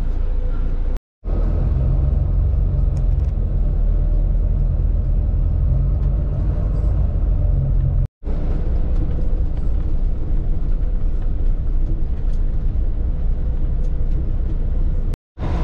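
Steady low rumble of a coach bus's engine and road noise heard from inside the cabin, broken by three brief gaps where the footage is cut.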